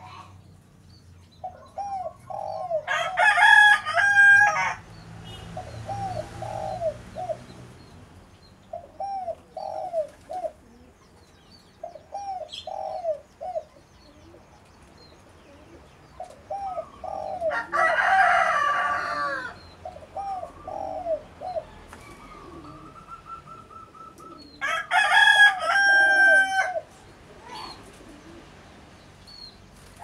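Doves cooing in repeated short phrases, with a rooster crowing loudly three times, about three seconds in, past the middle, and near the end.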